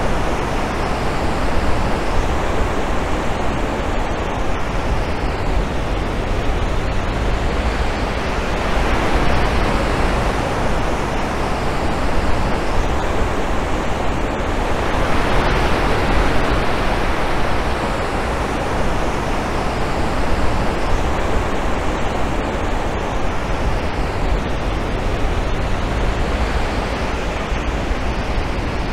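Ocean surf breaking on a sandy beach: a steady wash of noise that slowly swells and eases.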